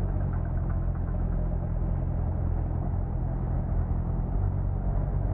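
Honda 650 inline-four motorcycle engine running steadily, holding an even pitch with no revving.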